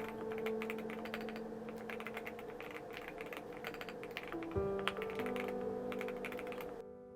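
Typing on a QK80 custom mechanical keyboard with Hiamu Midnight switches and MW Love Story keycaps: a steady run of key clacks that stops just before the end, over soft background instrumental music.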